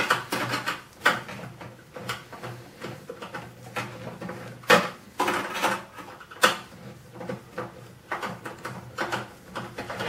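Screwdriver working a stubborn screw out of a microwave's sheet-metal casing: irregular metallic clicks, scrapes and rattles, with two sharper knocks about five and six and a half seconds in.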